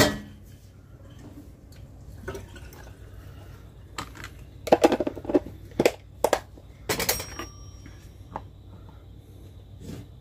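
Kitchen clatter: dishes and utensils knocking and clinking on a counter. There is a sharp knock at the start, then a run of clicks and knocks around the middle, one of which leaves a brief ringing tone.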